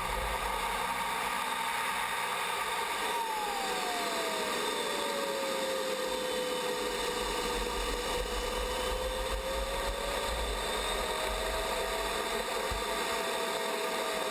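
A model airplane engine running at a distance, its pitch falling a few seconds in and then slowly rising a little, over a steady rushing hiss.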